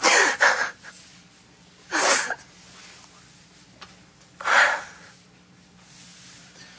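A woman crying: three sharp, breathy sobs about two seconds apart, the first a double one.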